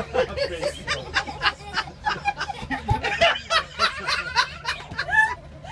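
A young girl and others laughing, a rapid run of short giggles that trails off near the end.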